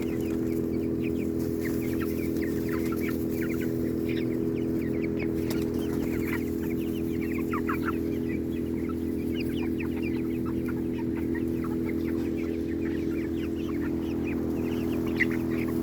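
A flock of chickens foraging on grass, making many short calls throughout, over a steady low mechanical hum.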